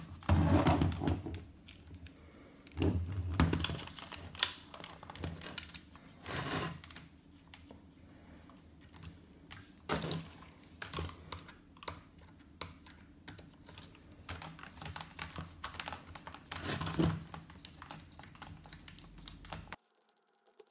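A small screwdriver clicking and ticking as it drives a screw into the plastic battery housing of a Dyson V6 cordless vacuum. Several dull knocks come as the battery and vacuum body are handled. The sound cuts out just before the end.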